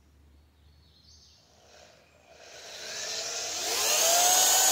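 Power drill driving a screw into a wooden frame: the motor spins up about two seconds in, its whine rising in pitch and holding at full speed near the end.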